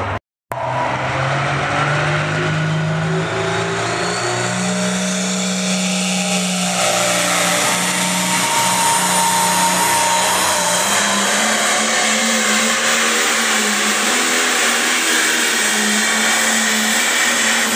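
Light pro stock pulling tractor's turbocharged diesel engine at full power under the load of the pulling sled. It climbs in pitch over the first few seconds, then holds at a high, steady rev with a broad hiss to the end of the pull.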